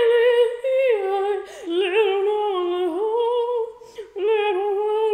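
A woman singing a made-up, French-sounding tune in a high, opera-like voice with vibrato, in three long held phrases with short breaths between.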